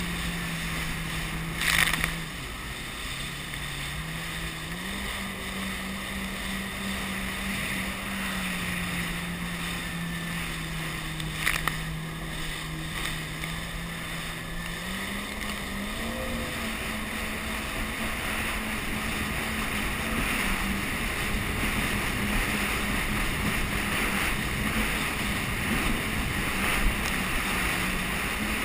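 Jet ski engine running under way, its pitch stepping up and down with the throttle, over a steady rush of wind and water. Two brief sharp knocks stand out, one about two seconds in and one a little before the middle.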